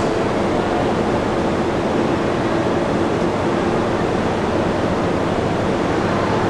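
Steady, even background roar of an underground subway station, with no distinct events.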